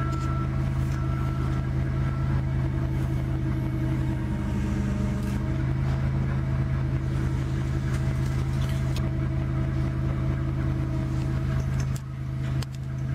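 A forklift running with a steady low hum under a load.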